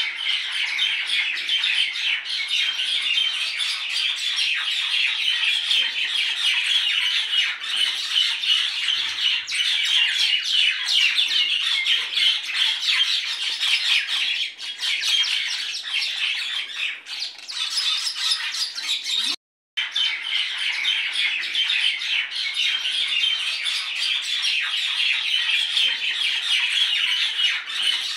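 A flock of birds chirping and squawking without pause, a dense chatter that cuts out completely for a moment about two-thirds of the way through.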